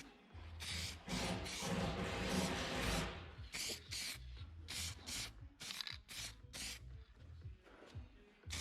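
Short repeated rubbing or scraping strokes on metal, a few a second, after a denser stretch of continuous scraping.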